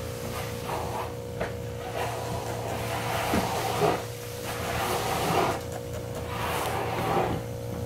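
Trigger spray bottle pumped several times, each squirt a short hiss onto the carpet, over a steady low machine hum.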